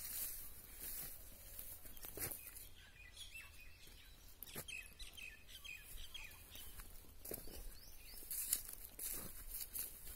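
Quiet outdoor ambience with birds chirping briefly several times, mostly in the middle, and a few soft knocks of handling or steps on ground.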